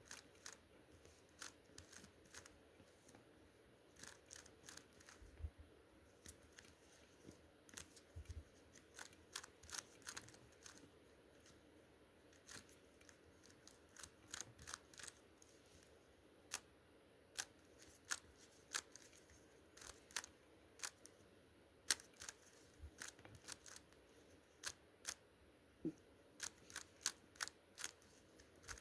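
Layers of a GAN speed cube snapping round as it is turned quickly by hand during a solve: sharp clicks in fast irregular runs, with short pauses between them.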